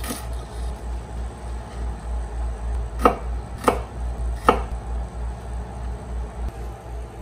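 Kitchen knife chopping on a wooden cutting board while slicing garlic cloves: three sharp knocks about three seconds in, over a low steady hum.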